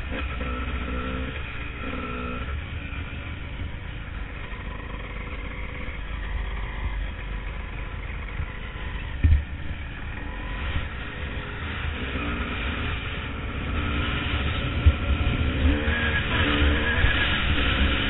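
Honda CR250 two-stroke single-cylinder dirt bike engine running as the bike cruises along a dirt track, heard from an on-board microphone with wind rumble. A sharp thump about halfway through, and the engine gets louder near the end.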